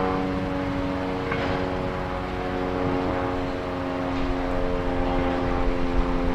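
Small diesel shunting locomotive's engine running steadily as it moves off with a freight wagon, a droning note with a few light knocks, getting louder and rougher about four seconds in as exhaust smoke puffs from it.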